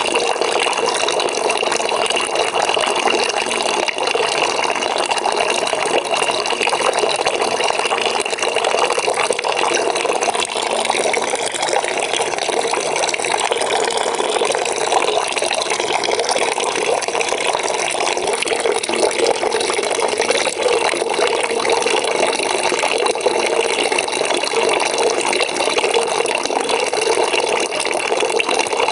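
Water pouring steadily into a bucket as it fills, a continuous splashing rush with no breaks.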